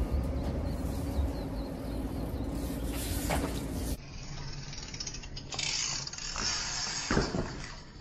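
BMX bike riding at a ledge: tyres rolling and metal pegs scraping and knocking on the ledge, with a steady hum under the first half. A few seconds in the sound cuts abruptly to a thinner recording, with a longer scrape in the middle and a sharp knock near the end.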